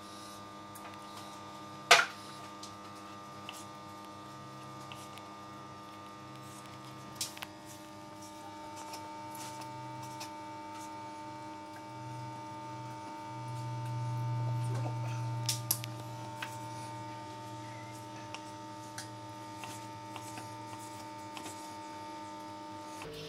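A steady hum, with a few sharp taps of a knife against a wooden cutting board as a raw fish fillet is cut into chunks; the loudest tap comes about two seconds in.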